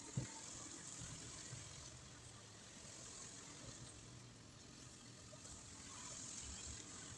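Faint room noise: a low steady hiss and hum, with a single sharp click just after the start.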